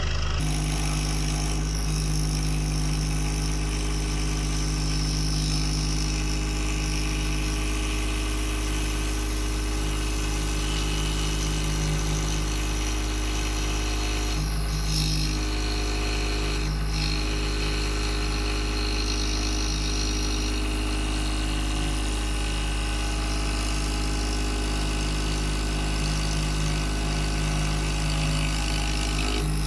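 Scroll saw running steadily and cutting wood, with a constant motor hum under the hiss of the blade.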